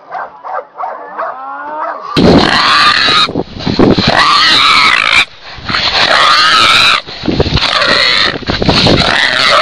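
A wild hog, gripped by catch dogs, squealing loudly in about five long, wavering squeals of a second or two each, starting about two seconds in. Before that, quieter short dog whines and yips.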